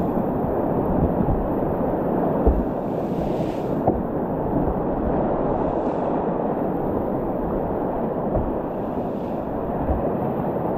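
Whitewater rapids rushing steadily, a dense churning noise of fast river water, with a few short splashes about every three seconds.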